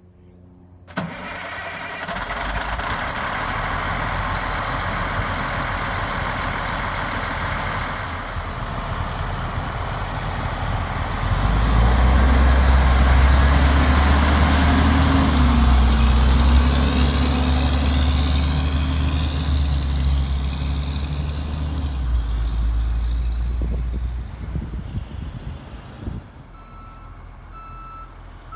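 Diesel engine of a 2001 International 2574 Vac-Con vacuum truck starting about a second in and running, growing louder and deeper partway through, then fading as the truck drives away. A reversing alarm beeps steadily near the end.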